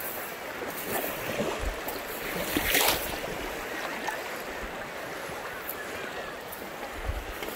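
River water rippling where its current runs out into a lake, a steady rush of water mixed with wind on the phone's microphone, with a louder rush about three seconds in.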